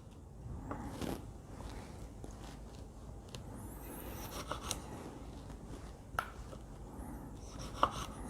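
Faint, scattered clicks and light scrapes of kitchen utensils and ingredients being handled, with a sharper tick about six seconds in and another near the end.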